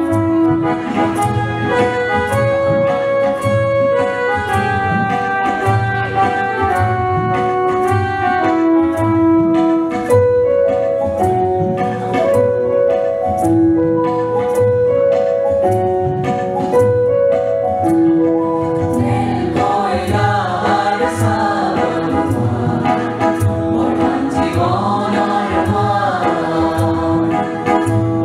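Instrumental melody of held notes on a keyboard-like instrument over a steady beat, then a mixed group of men and women starts singing together about two-thirds of the way in.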